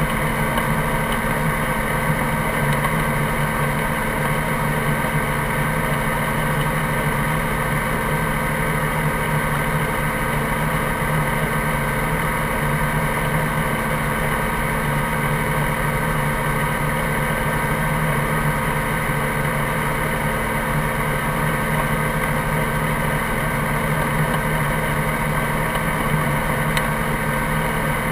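Helicopter engine and rotor running steadily at ground idle, an even mechanical sound with several steady tones and no change in pitch or level.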